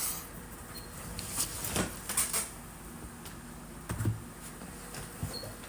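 Trading cards and their packaging being handled: a few short rustles and clicks, then a dull thump about four seconds in.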